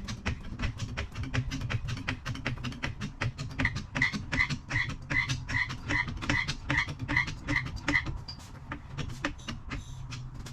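Background music with a fast, even beat: dense clicking percussion over a steady low bass, with a short high note repeating about every half second through the middle.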